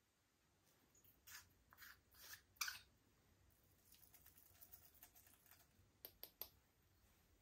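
Faint sticky clicks and crackles of slime being squeezed and stretched by hand, the loudest pop about two and a half seconds in, a soft run of crackling in the middle and a quick cluster of three pops near the end.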